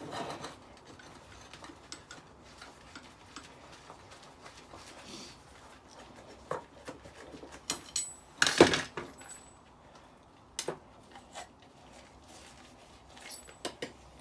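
Clinks, taps and light scraping of small metal parts as a stainless steel and aluminium decking light is unscrewed and taken apart by hand, with the loudest clatter about eight and a half seconds in.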